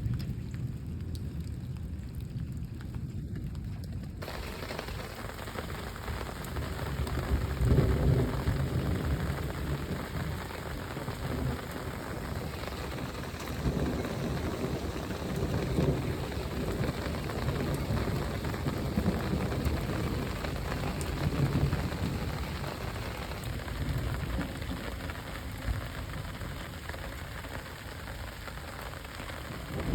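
Rainstorm: steady rain hissing, filling out in the upper range about four seconds in, with low rumbles of thunder swelling up several times.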